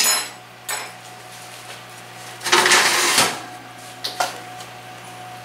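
Oven rack loaded with a cast-iron skillet being pushed in on its runners: a scraping metal rattle lasting under a second, about halfway through. A few sharp metal clicks and knocks come before and after it, over a steady low hum.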